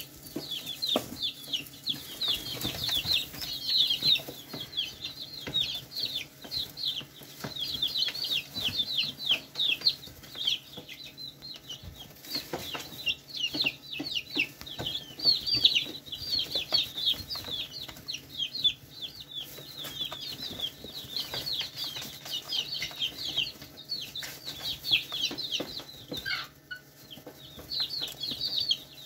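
A flock of young chicks peeping continuously: many short, high calls that slide downward, overlapping without a break, with scattered soft clicks among them.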